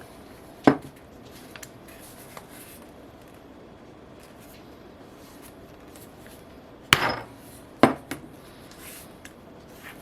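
Mallet striking a 1/4-inch oblong leather punch to cut holes through leather: three sharp knocks, one about a second in and two close together near the end, with a few light clicks of handling between.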